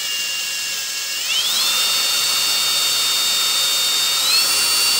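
Cordless drill running under load as the bit cuts into a broken bolt in an engine block, a steady high motor whine that steps up in pitch about a second in and again near the end. The bolt is very hard, and the bit is working through it slowly.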